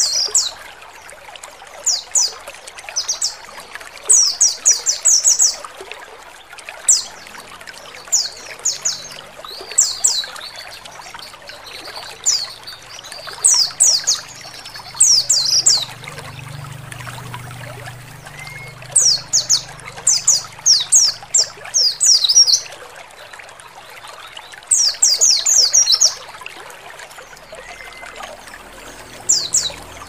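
White-eye (pleci) chirping in quick clusters of high, falling notes, repeated every second or two, over a steady trickle of running water.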